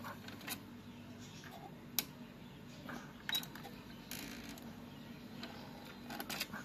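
Victor UX-Z11WMD MiniDisc drive mechanism making faint clicks as it tries to read a disc, with a sharper click about two seconds in, then clicking as it ejects near the end. The drive fails to read the disc.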